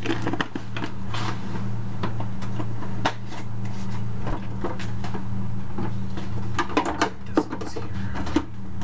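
A few scattered knocks and clatters of kitchen handling, with things being moved about and doors or drawers shut, over a steady low hum; the knocks bunch together near the end.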